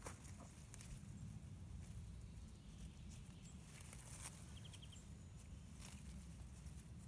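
Quiet outdoor garden sound: a low steady rumble with scattered soft clicks and rustles of leafy plants being handled and picked. A brief faint chirping trill comes about two-thirds of the way through.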